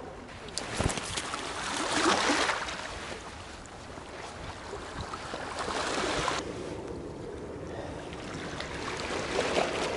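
Water washing against shoreline rocks and wind on the microphone, with a sharp knock just under a second in.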